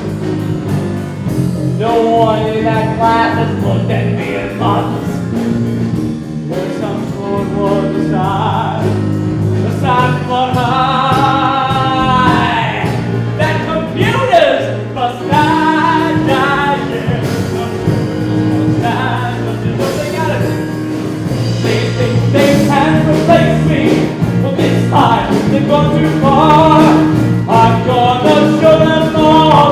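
A singer performing a song over instrumental accompaniment, with vibrato on the long held notes.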